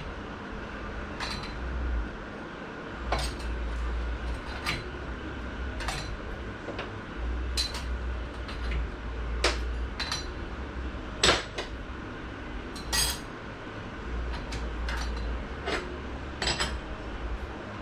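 Transmission clutch plates, steels and frictions, clinking against each other and the direct clutch drum as they are stacked in one at a time: separate light metallic clinks at irregular intervals of about a second.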